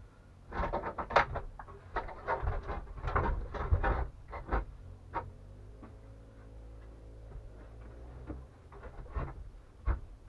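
Wooden plank bed knocking and clattering as it is pressed down and shifted to seat it on the floor: a dense run of wooden knocks for the first five seconds or so, then a few more near the end.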